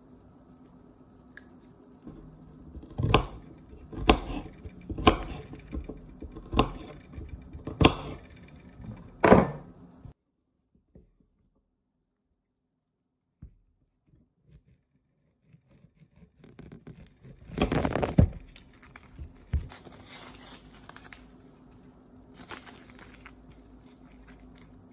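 Food preparation in a kitchen: six sharp knocks, roughly one a second, then after a few seconds of dead silence a louder, longer clatter followed by some rustling.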